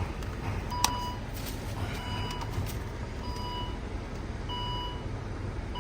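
2017 Volvo XC60's engine idling steadily after a vacuum leak has been dealt with, a low even rumble. Over it a short electronic beep repeats about every second and a quarter, about five times, with a single sharp click about a second in.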